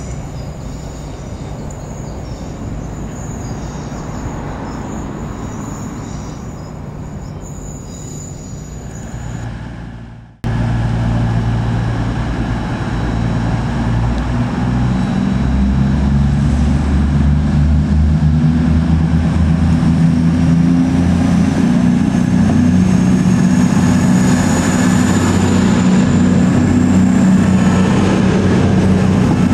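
Diesel train at a station: steady rolling train noise with a faint high whine, then after an abrupt cut about ten seconds in, a louder diesel train engine running with a deep throb and a high whine that slowly rises.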